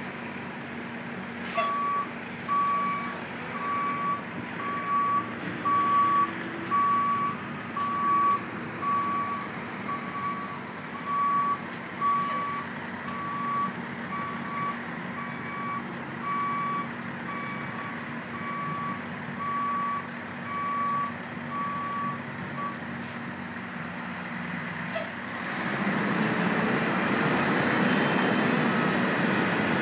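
Back-up alarm of a construction vehicle reversing, beeping evenly at a single pitch a little over once a second over the vehicle's steady engine hum. The beeping stops about 22 seconds in, and a few seconds later the engine noise grows louder.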